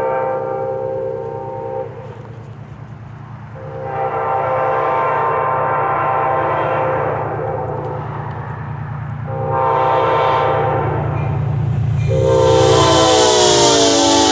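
Amtrak passenger train locomotive's horn blowing the grade-crossing signal as it approaches: two long blasts, a shorter one, then a long one that drops in pitch as the locomotive passes, over the steady rumble of its diesel engine. The pass ends in the loud rushing rumble of the train going by.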